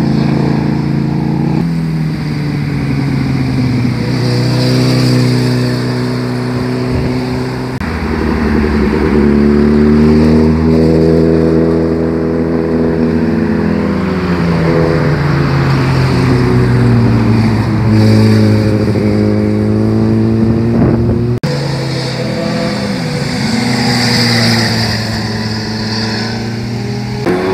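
Motorcycle engines passing through a hairpin bend, one bike after another, their pitch falling as riders roll off and rising again as they accelerate out of the turn. The sound changes abruptly at about 2, 8 and 21 seconds in, where one pass gives way to the next.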